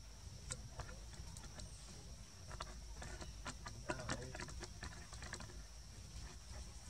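Irregular small clicks and crackles from a baby macaque handling and chewing food among dry leaves and stems, thickest around three to four seconds in, over a steady high-pitched tone in the background.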